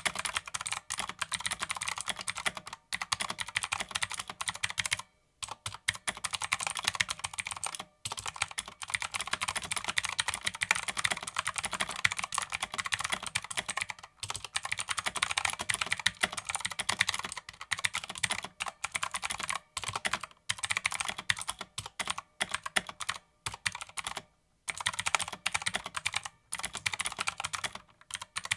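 Continuous fast typing on a Redragon Kumara K552 tenkeyless mechanical keyboard with clicky switches and thin ABS keycaps, a rapid stream of key clicks broken by a few short pauses.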